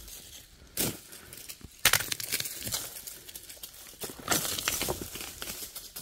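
Rustling and crackling in dry leaves and brush, coming in several bursts with the loudest about two seconds in. The hiker takes it for a large unseen animal moving through the undergrowth.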